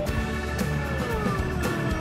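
Background music with a steady low bass and held notes.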